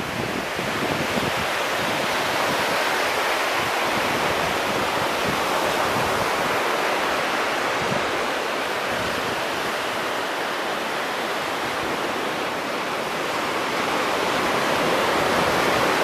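Ocean surf breaking and washing up a beach: a steady hiss of foaming water that swells a little near the end.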